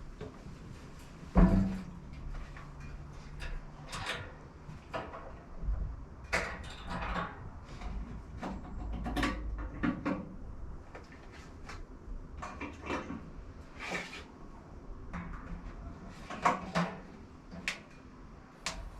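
A series of irregular knocks and clunks, like things being handled and set down, the loudest a heavy thump about a second and a half in.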